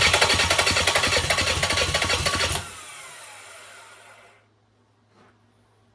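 Kubota V2203 four-cylinder diesel being cranked over by its starter motor with rhythmic compression pulses but not firing, because fuel has not yet been bled through to every injector. The cranking stops about two and a half seconds in and a falling whine trails off as the engine and starter spin down.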